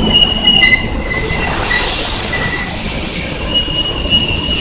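Kintetsu limited express train rolling along the platform, its wheels squealing on the rails in thin high tones that come and go. A strong steady hiss sets in about a second in.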